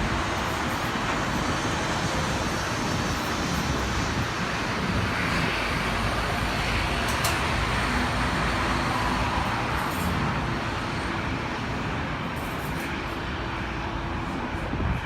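Steady, even roar of distant engines, with no clear rise or fall.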